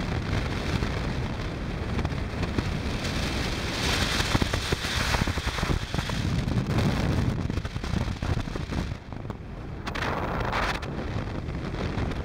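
Wind buffeting the microphone of a motorcycle at road speed over a steady low rumble, with gusts swelling louder about four seconds in and again near ten seconds.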